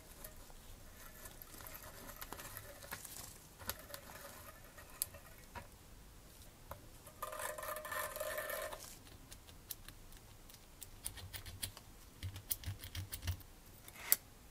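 Small metal parts of a model engine kit handled with steel tweezers and gloved fingers: light clicks and taps of metal on metal, with a run of quick clicks late on and one sharper click just before the end. A squeaky rubbing sound lasts about a second and a half past the middle.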